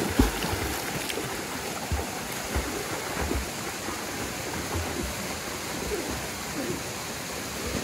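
Continuous splashing and churning of water from two people swimming hard across a pool, growing a little fainter as they move away.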